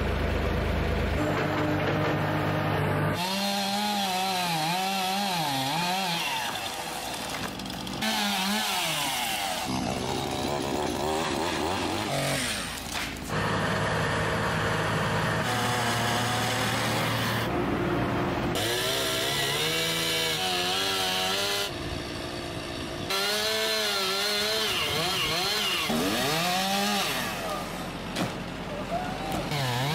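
Gasoline chainsaw cutting through tree limbs and a trunk, its engine pitch rising and falling as it revs and bogs in the wood. The sound breaks off and restarts abruptly several times.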